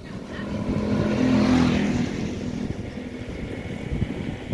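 A motor vehicle passing close by: its engine swells to a peak about a second and a half in, then fades away.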